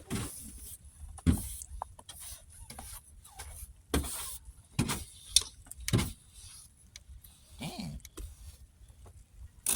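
Scattered short scrapes and knocks of snow being brushed and lifted by hand, a dozen or so strokes at uneven intervals.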